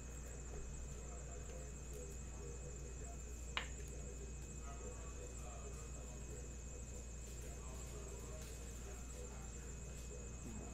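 Quiet room tone: a steady low electrical hum with a faint high-pitched whine, and one sharp click about three and a half seconds in.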